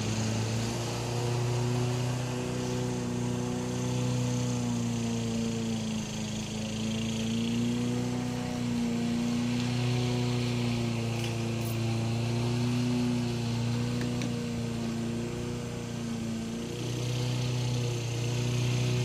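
A motor or engine running steadily, its hum wavering slightly up and down in pitch.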